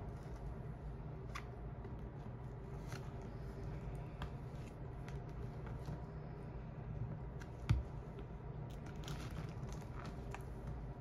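Faint scratching and clicking of a gopher tortoise's claws and shell on a padded exam-table mat as it is handled and steps about, over a steady low room hum, with one sharper knock a little past halfway.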